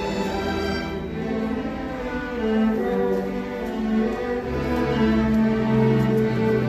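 A school string orchestra playing, with violins over cellos in held, sustained notes; the low strings come in more strongly about four and a half seconds in.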